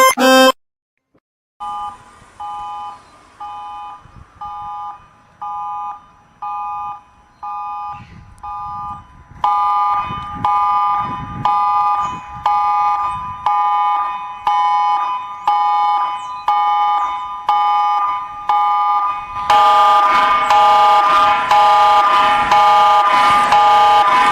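Synthetic emergency alert alarm: a chord of steady electronic tones beeping on and off a little more than once a second. It starts after a second of silence, steps up in loudness about ten seconds in, and near twenty seconds jumps louder again and turns harsh and distorted.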